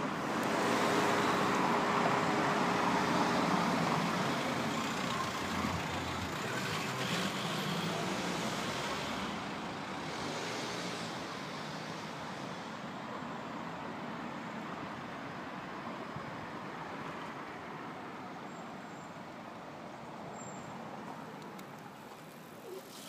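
Street traffic: a motor vehicle passes, loudest over the first few seconds, then fades slowly as it moves away, leaving a lower, steady traffic noise.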